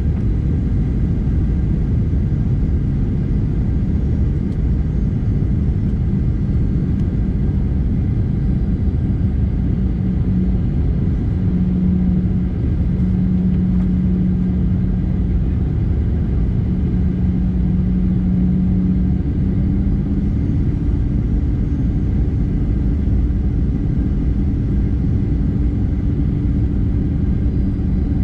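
Steady jet airliner cabin rumble from the engines and the airflow, heard from a window seat over the wing. A low hum in it grows louder in the middle, and a second, slightly higher hum joins about two-thirds of the way through.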